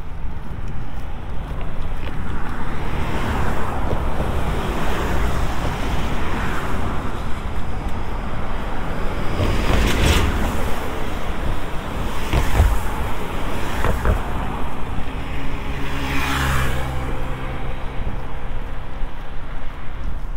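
Cars passing close by on the bridge road, each one's tyre noise swelling and fading: the loudest about halfway through, two more later. Wind buffets the microphone throughout.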